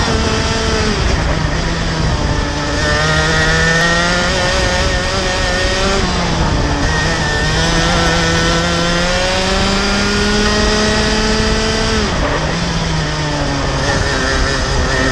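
Rotax Max 125 cc single-cylinder two-stroke kart engine at racing speed, its pitch climbing steadily under full throttle and falling sharply as the throttle is lifted for corners, about a second in, around six seconds and around twelve seconds, before rising again.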